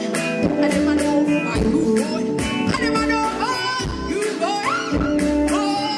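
Live band music with a woman singing over a held chord and a regular drum beat.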